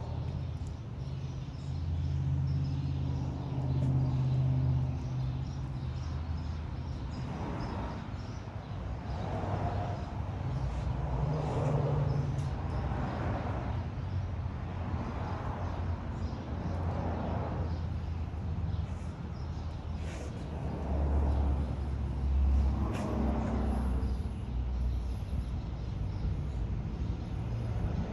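A steady low engine drone, like a vehicle running nearby, with soft squirting sounds about every two seconds from liquid soap being squeezed out of a plastic squeeze bottle.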